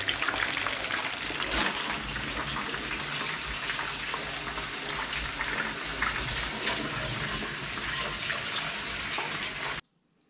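Battered cod fillets frying in a pan of hot oil: a steady, dense sizzle full of small crackles, which cuts off suddenly near the end.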